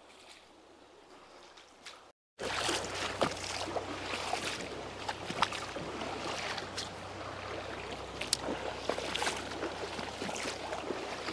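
Near silence for about two seconds, then after a short dropout a shallow creek flowing and rushing over stones, with scattered sharp clicks and knocks over it.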